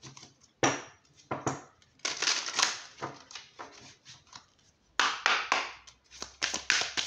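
A deck of oracle cards shuffled by hand: bursts of papery rustling and flicking, with a run of quick card flicks near the end.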